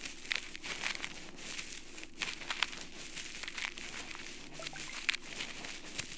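An ear-cleaning tool scraping against earwax inside an ear canal: irregular crackling and scratching that comes close up and loud.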